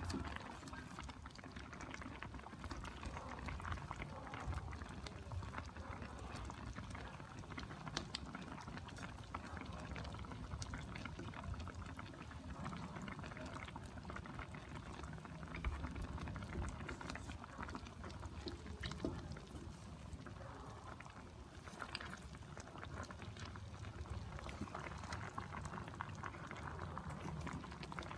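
Sauce simmering around chicken drumsticks in an electric skillet, bubbling and crackling steadily, with a few light clicks of wooden chopsticks against the pan as the pieces are turned.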